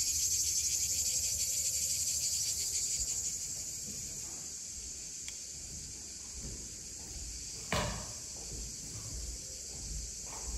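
Cicadas buzzing in a steady, high-pitched, finely pulsing drone, strongest for the first few seconds and then a little weaker. About three-quarters of the way through there is one sharp knock, the loudest sound, with a few soft low thumps around it.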